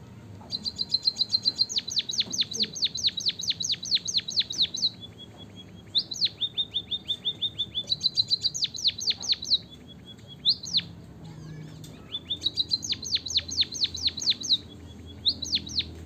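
White-headed munia (emprit kaji) singing: fast runs of thin, high, down-slurred notes, about five a second, in three long bouts separated by short pauses with a few single notes.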